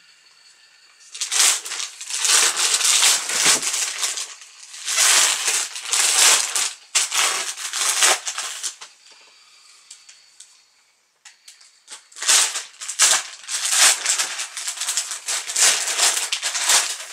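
Clear plastic wrapping on a new spring mattress crinkling as it is handled, in two long stretches with a pause of about three seconds between them.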